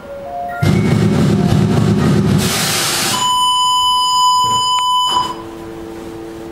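A loud burst of noise about half a second in, then a steady electronic beep for about two seconds that cuts off suddenly, leaving a low steady hum.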